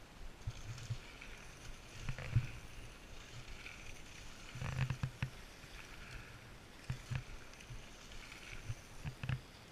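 Mountain bikes riding down a dirt singletrack close by: irregular low knocks and short rattles of tyres and frames over the rough ground.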